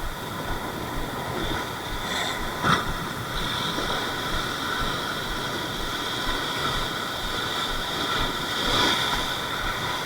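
Steady noise of sea surf and wind on an action camera's microphone, with a steady high-pitched whine running under it and a single sharp click a little under three seconds in.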